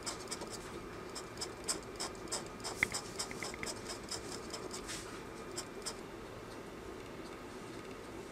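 Craft knife blade cutting screentone on a manga page: a quick run of short, light scratching strokes that thins out after about six seconds.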